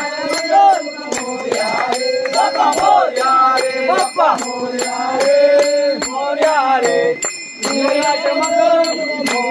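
Devotional group singing, voices rising and falling in a chant-like melody, over a jingling metal percussion beat of about three to four strikes a second.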